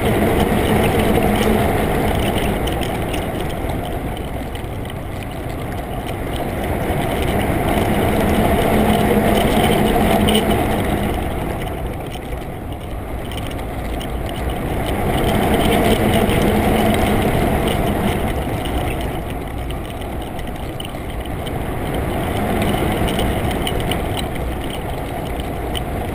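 Water rushing past a GoPro's waterproof housing as it is towed underwater on a fishing dredge, with the low hum of the boat's engines and propellers carried through the water. The rush swells and fades slowly every several seconds.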